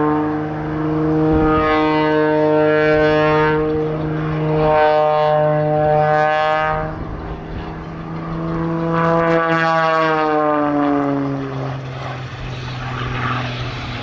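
Aerobatic display aircraft running at high power through its manoeuvres, the engine's pitch rising and falling several times and sliding down noticeably after about nine seconds as it passes and pulls away.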